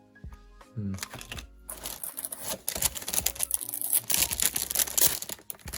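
Plastic wrapper of a trading-tag pack crinkling and tearing as it is ripped open by hand, a dense crackle for about three and a half seconds from about two seconds in.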